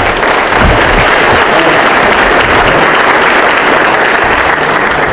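Audience applauding, a loud, steady round of clapping that holds throughout.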